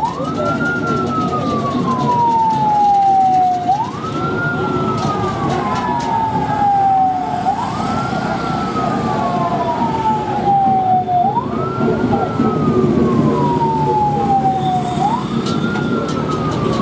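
Police patrol vehicle's siren wailing in slow cycles, each a quick rise followed by a long falling sweep, repeating about every four seconds. Underneath runs a steady rumble of crowd and engine noise.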